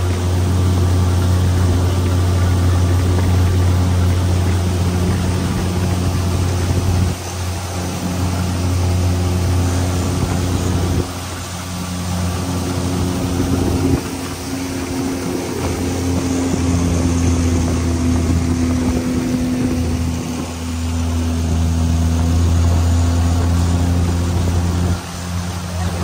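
A boat's motor running steadily with a low hum, dipping in level briefly several times.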